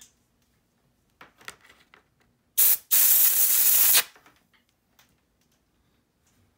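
Canned compressed air blown in two bursts, a short puff then a hiss of just over a second, into the open slot of a removed butterfly-keyboard key to clean out debris that stops the key registering. Faint handling ticks come before it.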